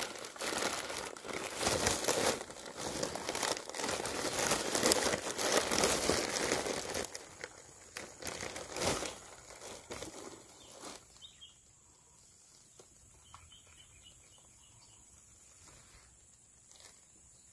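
Close crinkling and rustling with many small clicks, loud for the first seven seconds or so and then dying away to a faint background, with a few soft quick chirps in the quieter part.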